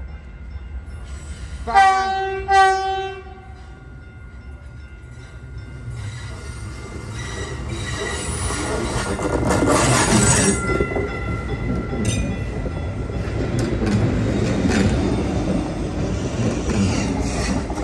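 TEXRail Stadler FLIRT diesel multiple unit sounding its horn in two short blasts about two seconds in. It then runs into the station past the microphone, growing louder, with squealing wheels on the curve and a steady rumble as the cars go by.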